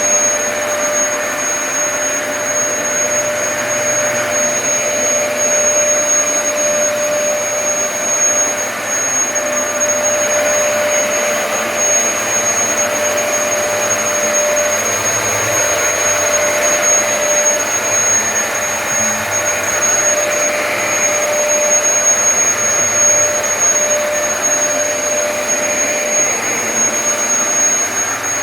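Dyson DC33 upright vacuum cleaner running steadily while vacuuming carpet through its motorised brush head: a continuous rush of air with a steady whine over it.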